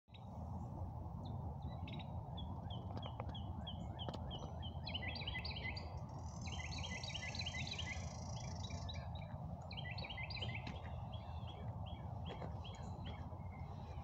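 Wild songbirds chirping and singing: quick runs of repeated chirps, joined in the middle by a higher, thin song, over a steady low background rumble.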